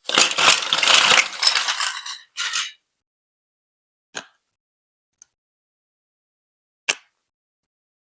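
Lego Duplo marble-run pieces clattering densely for about two seconds, then a short second rattle, then three single clicks spaced a second or two apart.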